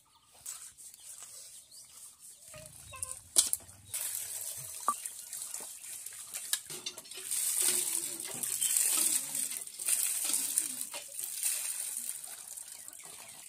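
Water sloshing and splashing in a steel bowl as small fish are washed by hand, louder in the middle stretch. A single sharp knock comes a little over three seconds in.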